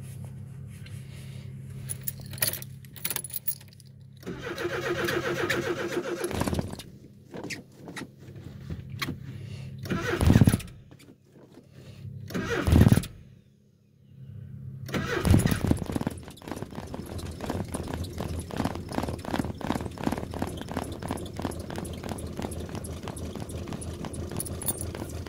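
Cold start of an old vehicle's engine: attempts to start with two loud thumps midway, then the engine catches about fifteen seconds in and runs on with a steady, even pulse. Keys jangle in the ignition.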